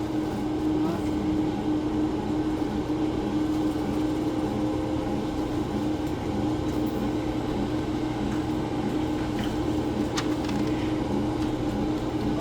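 Steady mechanical hum of the BreadBot bread-making vending machine running, a constant low tone over a faint pulsing underneath, with a few light clicks near the end.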